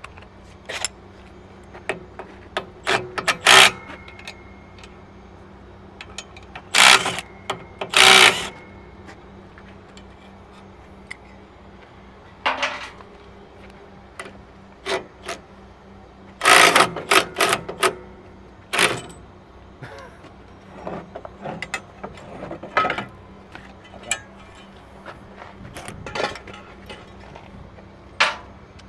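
Cordless impact wrench run in short rattling bursts, several times, to unbolt a truck's mud-flap hanger bracket, with scattered metal clicks and clanks between bursts as the bracket is worked loose.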